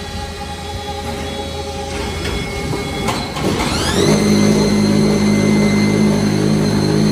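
Unfired brick-press machinery running with a steady industrial hum. About three and a half seconds in, a motor spins up with a rising whine and settles into a louder steady hum with several tones from the brick-pressing machine.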